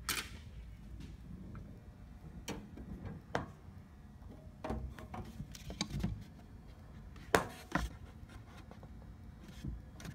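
Scattered knocks, clicks and rubbing from a phone being handled and moved about while being set in place. The loudest are two knocks about seven and a half seconds in.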